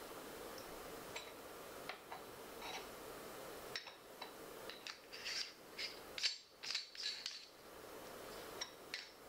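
Light clicks and scrapes of a small metal Voigtländer camera lens being turned and handled in the hands, scattered at first and coming in a quick cluster of ticks about five to seven seconds in, over a steady hiss.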